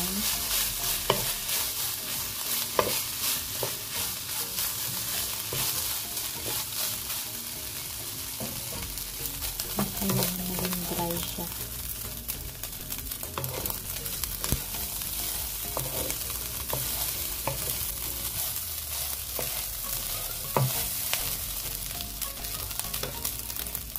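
Raw rice with meat strips and mushroom slices sizzling in oil in a nonstick wok, stirred and scraped around by a wooden spatula, with scattered knocks of the spatula against the pan. The uncooked rice is being stir-fried dry in the oil.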